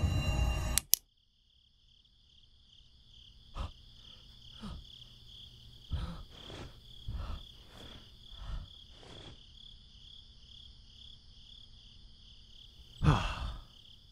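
Scary music cuts off abruptly about a second in, leaving night ambience of crickets chirping in a steady pulsing trill. Short soft knocks sound every second or so through the middle, with a louder thump near the end.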